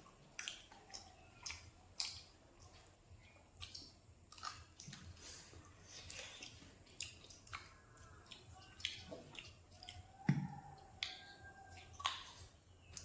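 Close-up crunchy chewing of crispy fried pig tail, with sharp crunches about twice a second, and one louder low thump about ten seconds in.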